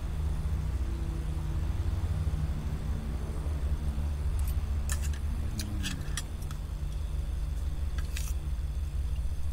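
A steady low motor hum, with a few sharp light clicks about halfway through and again near the end.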